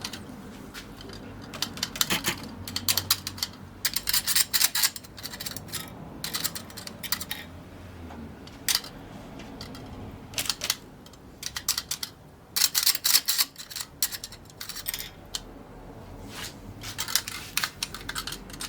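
Irregular bursts of sharp metallic clicking and scraping, in clusters up to about a second long with short gaps between them, over a faint steady hum.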